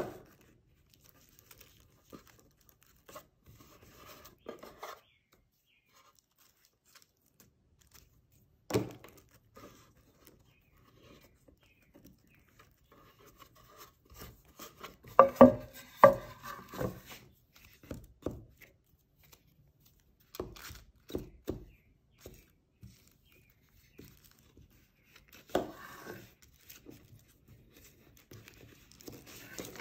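Tissue paper being pressed, smoothed and folded by hand onto a wooden tray: intermittent rustling and crinkling with scattered light taps. There is a sharp knock about nine seconds in, and the busiest, loudest stretch comes about fifteen to seventeen seconds in.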